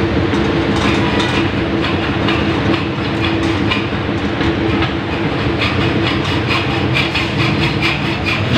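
Mitsubishi Fuso diesel engine running steadily to drive a water pump, with a fast rhythmic clatter over a steady drone.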